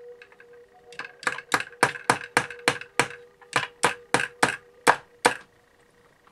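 Small hammer tapping quickly, about fourteen sharp blows with a short break midway, fastening the leg of a wire sculpture armature to a wooden base.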